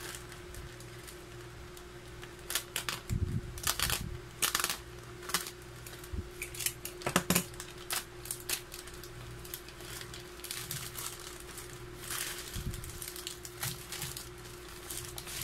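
Plastic courier mailer bag being torn open and rustled by hand, with irregular sharp crinkles and rips, then bubble wrap crinkling as a wrapped can is pulled out near the end. A steady low hum runs underneath.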